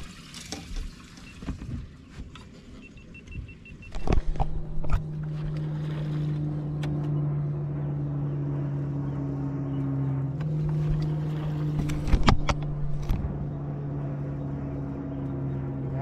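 A boat motor starts about four seconds in and runs at a steady pitch, shifting slightly in pitch about ten seconds in. Sharp knocks and clatter on the boat, loudest around four and twelve seconds in.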